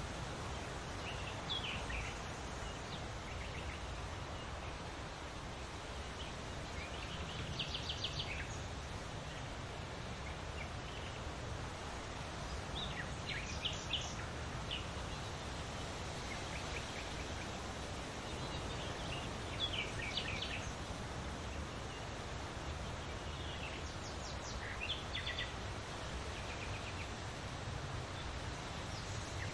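Birds singing in short chirping phrases every few seconds over a steady rustle of leaves in the wind.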